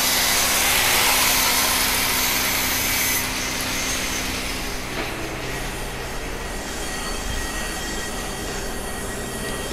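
Steady machine noise from workshop equipment: a motor hum with a loud hiss over it that drops away about three seconds in, while the hum carries on.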